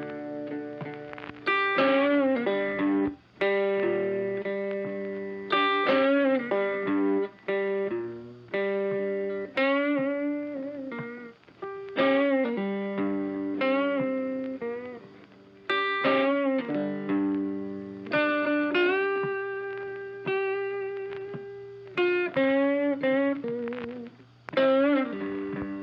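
Background blues music led by electric guitar, its notes bent and phrased in repeating licks.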